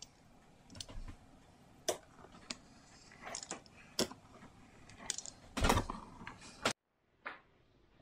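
Pizza cutter wheel rolling through dough and clicking and tapping against the benchtop, a scatter of sharp clicks with the loudest cluster about five and a half seconds in. The sound cuts out abruptly near the end, followed by one more click.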